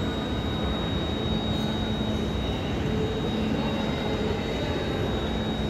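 Renfe Avant electric train at a station: a steady hum and rumble with a thin, steady high whine.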